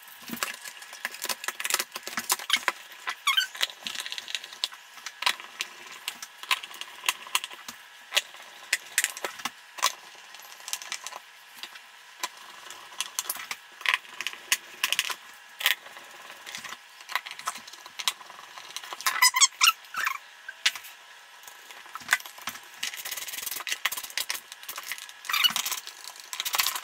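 Scattered clicks, taps and scrapes of a BMW E30 instrument cluster's plastic housing being put back together and screwed up with a screwdriver, with a few short squeaks among them.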